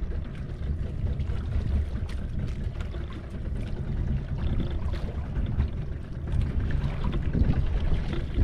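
Steady low rumble of a fishing boat at sea, with wind noise on the microphone and water sounds over it.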